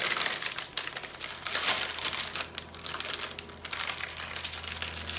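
Small clear plastic bags of diamond-painting rhinestones crinkling and rustling irregularly as they are handled.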